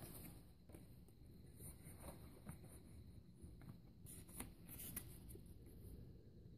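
Near silence with faint rustling and a few light clicks of trading cards and booster packs being handled, a small cluster of clicks about four to five seconds in.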